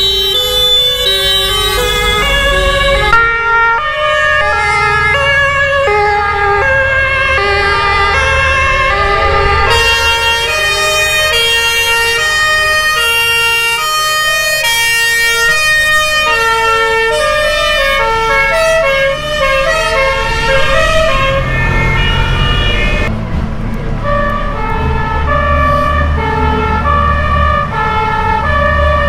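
Several two-tone emergency-vehicle sirens sounding at once, each alternating between two notes and overlapping out of step at different pitches, over the low running of vehicle engines.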